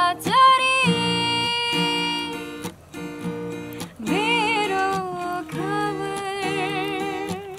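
A woman singing long held notes, some wavering with vibrato, over her own strummed acoustic guitar.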